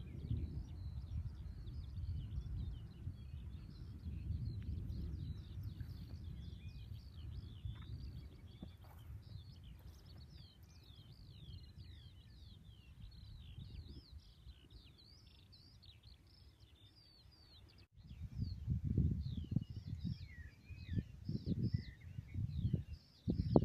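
Wind noise rumbling on the microphone under a dense, continuous chatter of small birds' chirps and calls. About eighteen seconds in the sound cuts off abruptly, then heavier gusts of wind buffet the microphone while birds keep calling.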